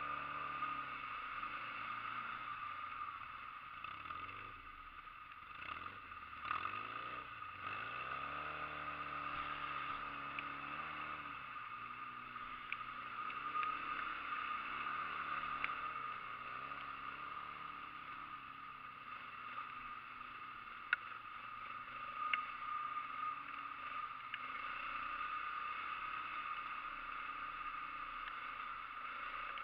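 ATV engine running and being revved, its pitch rising and falling several times as it works, with a couple of sharp knocks later on.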